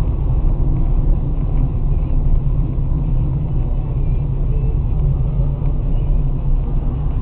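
Steady low rumble of road and engine noise from a moving car, heard inside its cabin.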